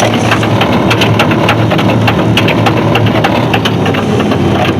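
Vehicle driving slowly on tire chains, heard from inside the cab: a steady low engine and road drone under a rapid, irregular clacking of the chains.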